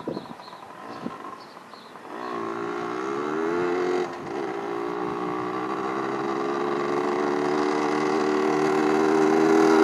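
Big-bore 1986 Yamaha BW80's two-stroke single-cylinder engine pulling the bike along; it is faint for the first two seconds, then rises in pitch as it accelerates, dips briefly about four seconds in, and runs steady while growing steadily louder as it comes closer.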